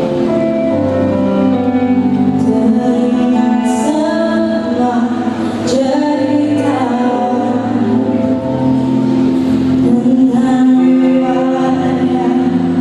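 Music with singing: held notes over a steady accompaniment.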